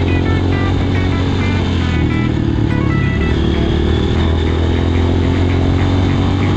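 Motorcycle engine running at a steady pace while riding off-road, mixed with background music whose short melodic notes sound throughout.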